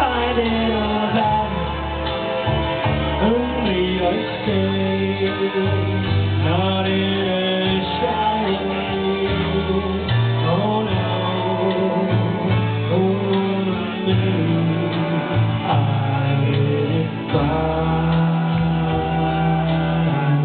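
A song with singing over guitar and a steady bass line, played loud throughout.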